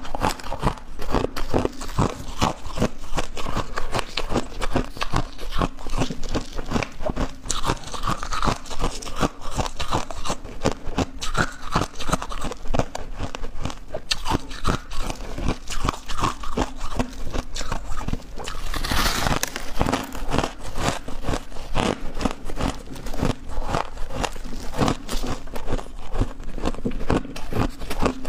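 Crushed ice being bitten and chewed close to the microphone: a dense, rapid run of crunches and cracks all through, with a short hissing rustle about two-thirds of the way through.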